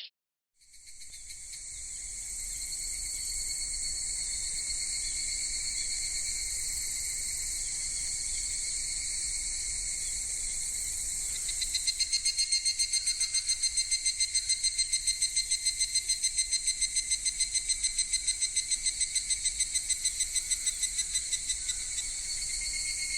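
Electronic transformation-belt sound effect: a high, shrill whine fades in and holds steady. About halfway through it breaks into a rapid even pulsing, about five pulses a second, then goes back to a steady whine near the end.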